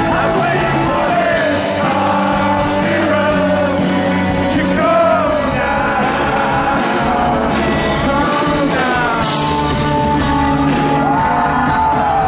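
Rock band playing a song live, with a sung lead vocal over the band.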